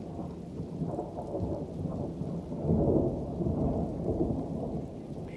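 Rolling thunder rumbling from a violent thunderstorm, swelling to its loudest about three seconds in.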